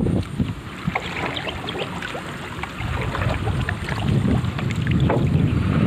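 Wooden paddle dipping and pulling through river water beside a small bamboo-outrigger boat, with light splashes and scattered drips, over a low rumble of wind on the microphone.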